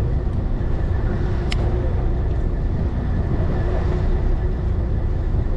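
Fishing boat's engine running steadily, a low rumble with a faint steady hum over it. A single sharp click about one and a half seconds in.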